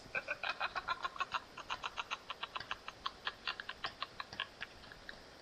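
A woman's long, rapid staccato laugh that sounds like a bleating goat, a string of short high-pitched pulses at about seven a second, thinning out near the end.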